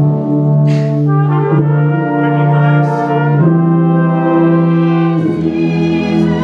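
Youth orchestra playing slow, sustained chords with the brass to the fore, the harmony changing about every two seconds.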